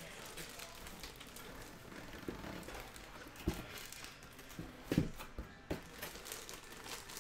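Quiet handling of a cardboard box and a jersey in a clear plastic bag: faint crinkling of the plastic with a few light knocks, the sharpest around three and a half and five seconds in.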